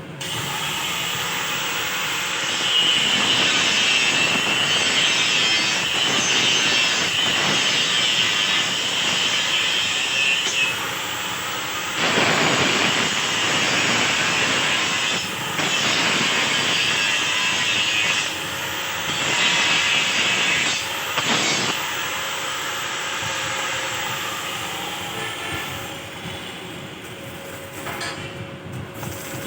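Harsh, rasping metalworking noise from a welding workshop, swelling and easing in long surges and tapering off near the end, with a faint steady hum underneath.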